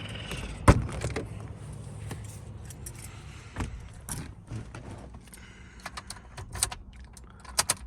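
A bunch of keys jangling and clicking as they are handled, with several sharp knocks, the loudest about a second in, over a low steady rumble.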